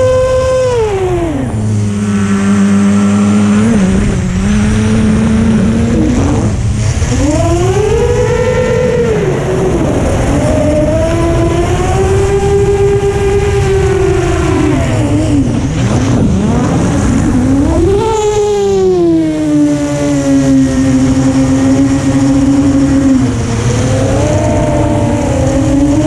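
FPV quadcopter's brushless motors whining in flight, their pitch sliding down sharply about a second in, then swelling and dipping with the throttle, with a big rise near the middle before settling to a steadier, lower tone.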